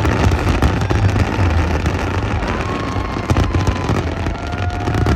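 Fireworks going off thick and fast: dense crackling and many sharp bangs over a continuous low rumble.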